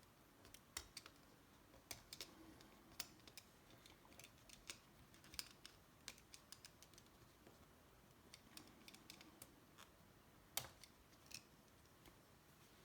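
Faint, irregular snips and clicks of a small cutting tool trimming a rubber piece down so it sits level, with one sharper click about ten and a half seconds in.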